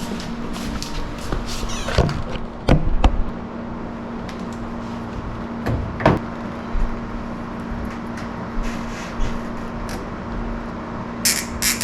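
Scattered knocks and clunks of hand work on a furnace, parts and tools being handled, over a steady low hum. A brief rustling noise comes near the end.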